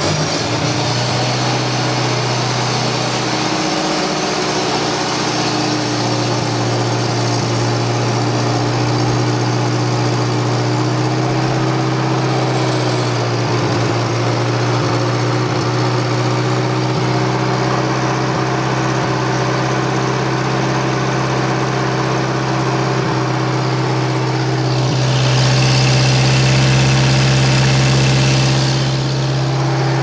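Bobcat 610 skid steer's engine running steadily just after a cold start on the choke. It grows louder for a few seconds near the end.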